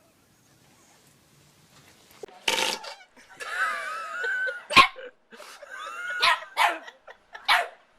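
A dog barking and whining in a string of outbursts, starting about two and a half seconds in, some short and sharp and some drawn out with a wavering pitch.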